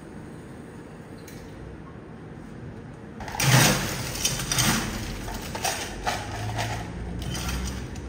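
Ice cubes being scooped and dropped into a clear plastic cup: a sudden loud clatter a little over three seconds in, then a run of irregular rattles and knocks. Before that there is only a steady low hum.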